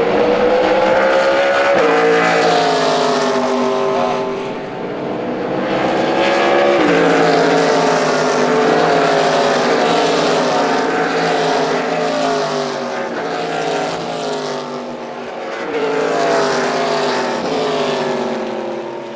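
A pack of stock cars racing past at speed through a corner, several engines running hard at once. Their notes repeatedly climb and then drop sharply as cars pass and accelerate, and the sound swells and eases as groups go by.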